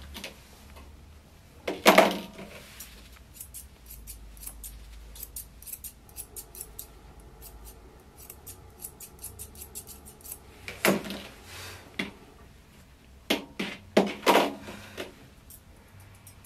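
Grooming shears snipping quickly through a toy poodle puppy's coat in rapid runs of short clicks, with a few louder knocks about 2 s in, around 11 s, and twice near the end.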